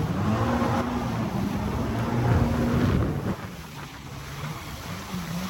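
Jet ski engine running at speed over choppy sea, with water spray and wind buffeting the microphone; the sound drops for a moment about three seconds in.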